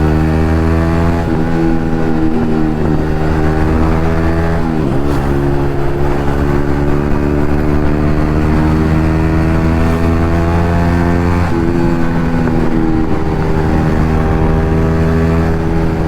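Yamaha MT-15's single-cylinder engine running through an aftermarket Akrapovic exhaust under steady acceleration. The pitch climbs slowly and drops sharply at gear changes about five and eleven and a half seconds in.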